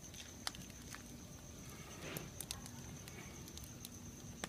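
Firewood burning in a fire pit, crackling with scattered sharp pops and a brief rush of flame about two seconds in. A faint steady high tone runs underneath.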